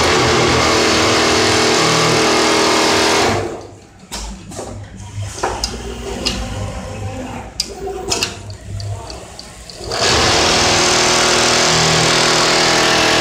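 Automatic template sewing machine stitching at speed, a loud steady run lasting about three and a half seconds, then a second run starting about ten seconds in. In between come quieter scattered clicks and knocks from the machine and templates.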